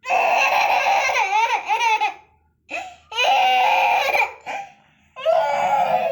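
A baby letting out three long, high-pitched squeals with short pauses between them. The first wavers up and down in pitch near its end.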